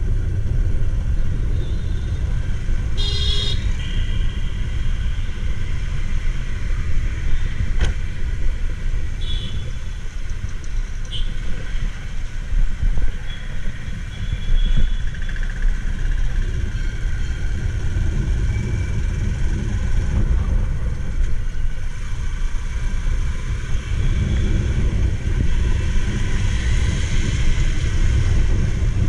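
Steady low rumble of a motorbike riding through city traffic, heard from a camera mounted over the handlebars. A vehicle horn sounds briefly a few seconds in, and two short higher beeps follow later.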